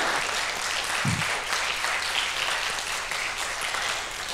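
Audience applauding, a steady clapping that eases off slightly near the end.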